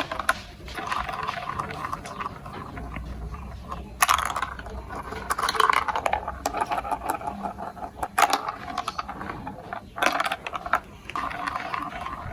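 Marbles rolling and clattering through a plastic marble run, a steady rolling rumble with many sharp clicks as they hit the track pieces, the loudest at about four, eight and ten seconds in.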